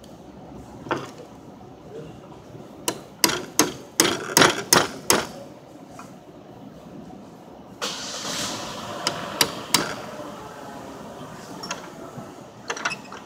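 Sharp metallic knocks from hand tools on suspension parts: a quick run of six or so strikes about three to five seconds in, a short hiss near the middle with three more knocks, and a couple of knocks near the end.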